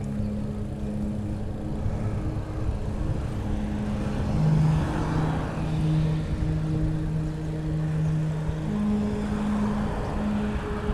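Wind rush and tyre rumble from a bicycle rolling along a paved trail, swelling for a couple of seconds near the middle. Under it run low steady humming tones that switch pitch every few seconds.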